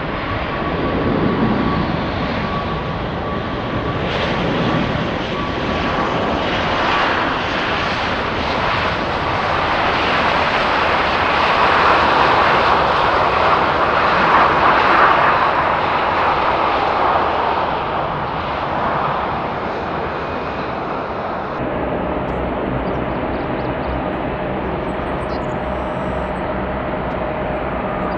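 Boeing 737-800 jet airliner's CFM56 engines running loud with a thin steady whine. The noise swells to a peak about halfway through and then eases. Near the end it cuts abruptly to a steadier, slightly quieter jet engine hum with a different thin whine.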